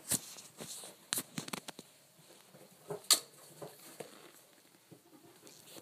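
Pet rats scrambling over a shirt: irregular scratchy clicks and rustles of claws on fabric, with a louder knock a little after three seconds in.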